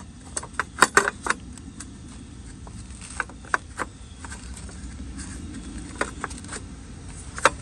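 Light clicks and knocks of a car headlight being handled and seated into its mounting, a quick cluster at first and then single clicks every second or two, over a low steady hum.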